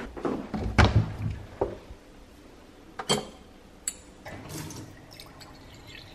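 Knocks and clatter as a kitchen cupboard is opened, then a drinking glass clinks sharply about three seconds in as it is taken from the shelf. Near the end, water from a sink faucet runs into the glass.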